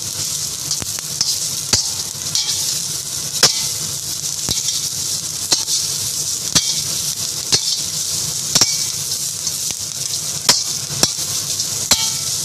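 Shredded cabbage, carrots and capsicum sizzling in a wok in a little oil as they are stir-fried, with a metal turner and spoon clacking against the wok about once a second.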